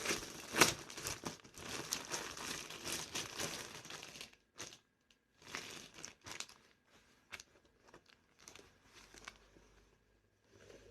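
Packaging being crinkled and rustled by hand, continuously for about four seconds, then in short scattered bursts that die away.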